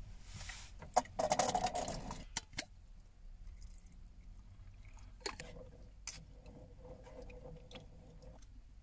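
Cooking sounds at a small metal pot: the contents of a can are tipped in with a few clicks and knocks, then liquid is poured in from a steel bottle and a spoon stirs.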